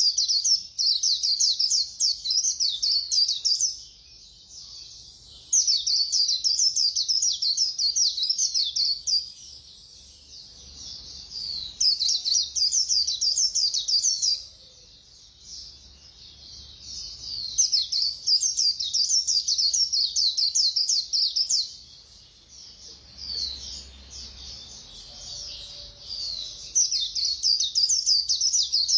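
White-eye (khuyên) singing its rapid 'líu' warbling song: five bursts of fast, high twittering, each a few seconds long, with short pauses between them.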